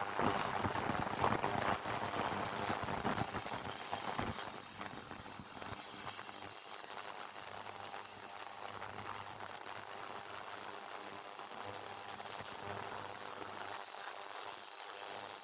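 Ultrasonic cleaner running, giving a steady hiss with a crackle of cavitation in the cleaning bath. It is busier with clicks for the first few seconds, then settles to an even hiss.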